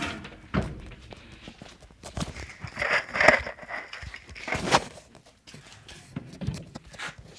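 Wooden boards and a wooden cage being shifted and handled: a few sharp knocks with scraping and rustling between them, loudest about three seconds in and again near five seconds.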